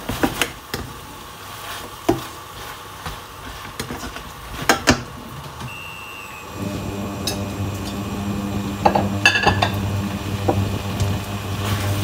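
A metal spatula scraping and clinking against a stainless steel frying pan as a saucy seafood stir-fry is stirred, in scattered sharp knocks. About six and a half seconds in, a steady low hum starts and continues under the stirring.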